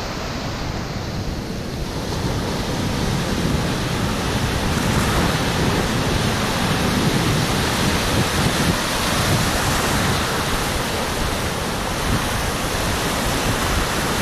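Ocean surf breaking and washing up the sand in a continuous rush, with wind buffeting the microphone.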